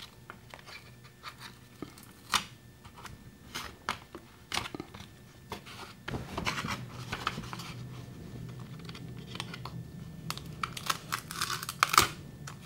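Sticky waterproof Tuck Tape being pulled off the roll with a tearing rasp and pressed onto plastic 3D-printed mold walls, from about halfway through and again near the end. Scattered sharp clicks and taps of the hard plastic mold pieces being handled and fitted together, with a louder click near the end.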